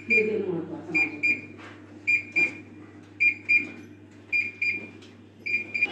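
Electronic alarm beeping in pairs of short, high beeps, one pair about every second, over a steady low hum.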